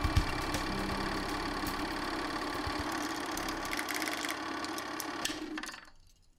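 Film projector running: a steady mechanical whir with fine rapid clatter, fading out near the end.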